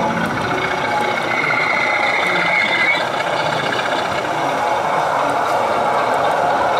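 O gauge model BR Class 25 diesel locomotive moving slowly, its sound-fitted speaker giving a steady diesel engine note with a fine even clatter. A high whine swells from about a second in and stops about three seconds in.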